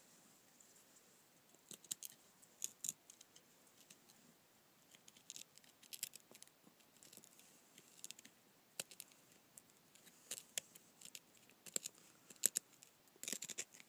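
Small knife blade scraping a lump of dry chaga fungus, a series of short, irregular scrapes that start a couple of seconds in, shaving it into fine tinder.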